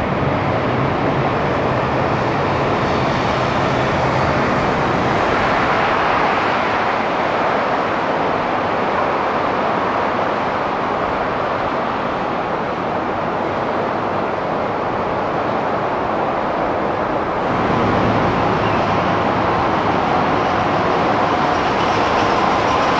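Steady rushing airport apron noise, with a shift in its tone about 17 seconds in.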